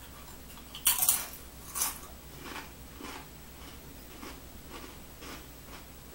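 A person biting into a Doritos tortilla chip: two loud crisp crunches about one and two seconds in, then quieter chewing crunches about two a second.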